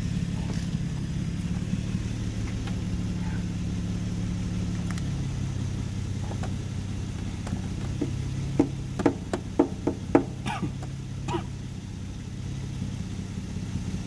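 Car engine idling steadily, with a quick run of sharp clicks and taps about eight to eleven seconds in.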